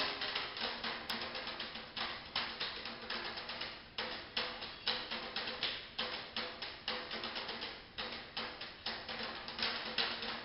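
Two djembe-style goblet hand drums played with bare hands together, a fast rhythm of many sharp strokes a second with a ringing drum tone beneath.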